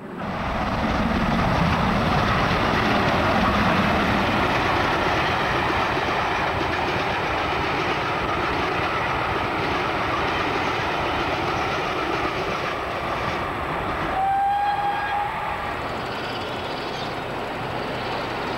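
A steam-hauled train of coaches rolling past at close range, its wheels rumbling and clattering on the rails, the noise slowly fading as it draws away. About fourteen seconds in, a BR Standard class 4 tank locomotive's steam whistle sounds once for about a second.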